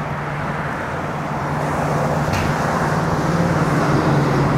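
Steady running noise of a motor vehicle, its low engine hum under road noise, growing slowly louder.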